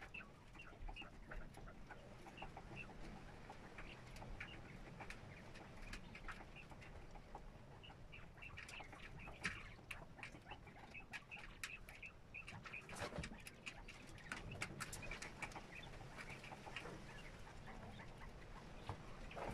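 Young partridge chicks peeping in short, high chirps, over and over, with light clicks and rustles of pecking and scratching in wood shavings, busiest in the middle. The sound is faint throughout.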